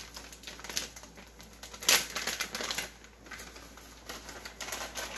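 Plastic bag of sliced almonds crinkling and crackling in gloved hands as it is opened and tipped, with irregular clicks and one sharper crackle about two seconds in.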